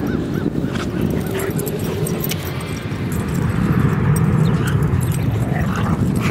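Dogs vocalizing: a few short, high whimpers and yips near the start and again near the end, over a continuous low rumble.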